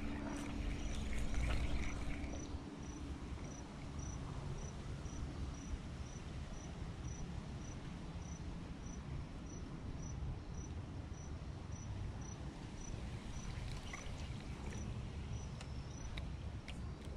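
A cricket chirping steadily, short high chirps about twice a second, over a steady low background rumble.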